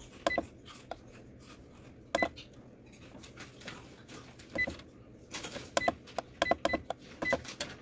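Control panel buttons on an Epson WF-2850 all-in-one printer being pressed one after another, each press giving a short click and a brief electronic beep, about seven in all. There is a short rustle of the hand near the middle.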